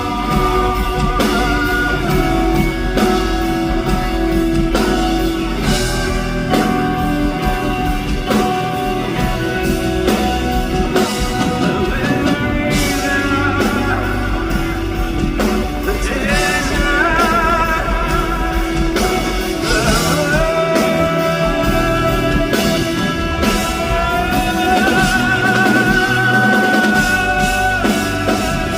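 Live band music with guitar, bass and drums, with some wordless singing over it.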